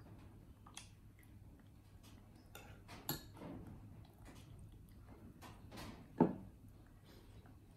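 Kitchenware being handled: scattered light clicks and knocks, with two louder knocks about three seconds in and about six seconds in.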